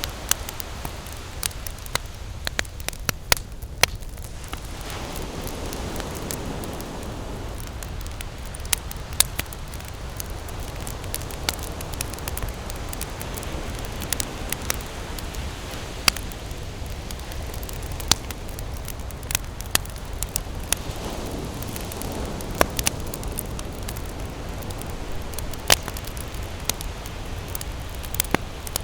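Wood campfire burning with frequent sharp crackles and pops over a steady low rush, which swells up twice.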